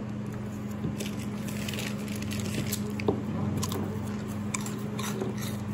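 Someone chewing and crunching a mouthful of snack food, with small irregular crunches and clicks over a steady low hum.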